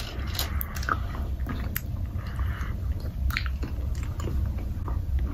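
People chewing jelly beans: scattered small clicks and squishes of biting and chewing, over a low steady hum.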